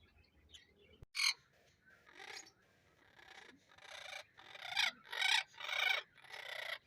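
Parrot giving a run of harsh, raspy squawks, one after another, the later ones louder.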